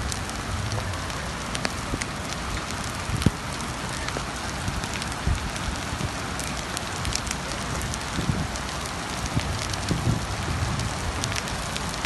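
Heavy rain pouring steadily, with many sharp ticks of drops striking hard surfaces.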